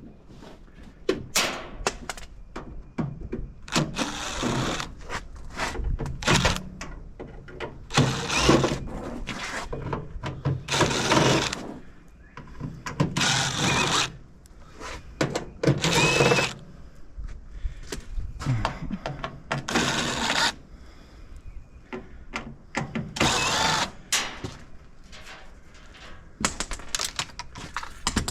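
Power drill running in short bursts of a second or two, several times over, backing screws out of a microwave's metal casing, with knocks and clatter of parts between the bursts.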